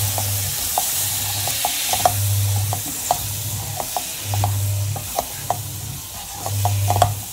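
Wooden spatula stirring and tossing whole boiled baby potatoes in a nonstick pan, with irregular knocks and scrapes against the pan over a soft sizzle of coconut oil and spices on low heat. A low hum comes and goes several times.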